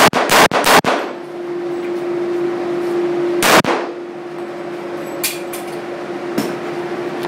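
Springfield XD-M .45 ACP semi-automatic pistol firing: four quick shots at the start and a single shot about three and a half seconds in, followed by several fainter bangs, over a steady hum.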